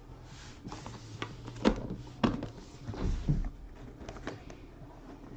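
Handling noises from opening a Panini Flawless box and its cards: a scatter of sharp clicks and knocks with light rustling over a faint low hum.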